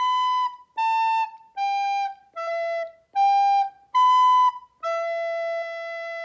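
Soprano recorder playing the close of a warm-up phrase in even, separate notes: B, A, G, E, G, B, then a long held E to finish.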